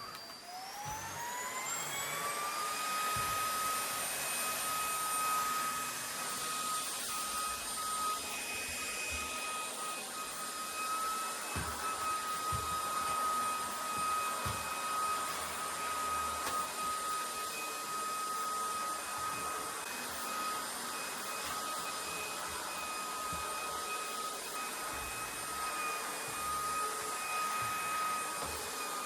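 Vacuum cleaner motor spinning up, its whine rising in pitch for a couple of seconds, then running steadily with a constant high whine over a rushing hiss.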